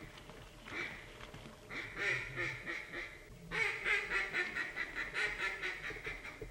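Ducks quacking in quick runs of calls: a short run about two seconds in, then a longer, faster run of rapid quacks through the second half.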